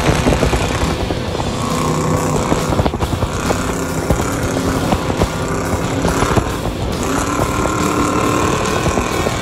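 Off-road race truck's 427-cubic-inch LS7 V8 running hard at speed. The engine holds steady notes for a few seconds at a time, breaks off briefly twice, and climbs in pitch about seven seconds in.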